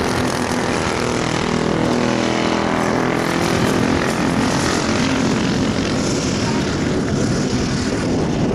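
Predator 212 single-cylinder four-stroke kart engines racing. Two karts pass close and their engine note falls in pitch over the first few seconds as they move off into the turn, with more karts running further away.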